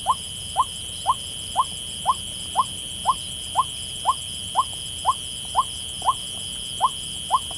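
White-breasted waterhen call notes, short rising squeaks repeated very evenly about twice a second, the lure call used to draw the birds in at night. Under them runs a steady high-pitched chorus of night insects.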